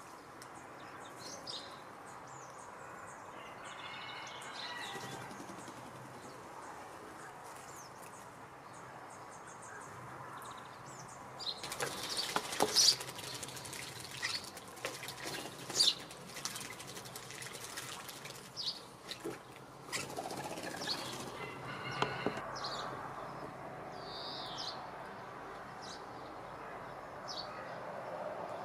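Starlings bathing in a shallow pool, splashing and fluttering their wet wings in a dense, loud run of flicks and splashes for several seconds midway. Short high bird chirps come and go throughout.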